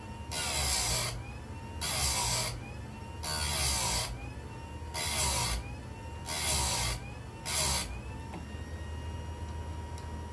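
Electric chainsaw chain sharpener's grinding wheel grinding chain teeth: six rasping grinds, each under a second, coming about every one and a half seconds, with the motor running steadily in between. The grinding stops about eight seconds in while the motor keeps running.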